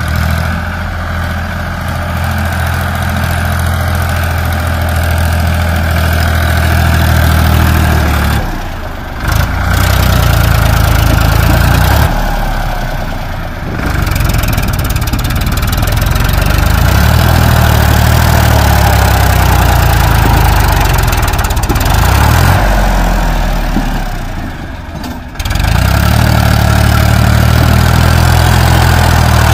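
Powertrac 434 Plus tractor's three-cylinder diesel engine running steadily under load, pulling a fully loaded trolley of earth over soft dirt. The sound dips briefly three times.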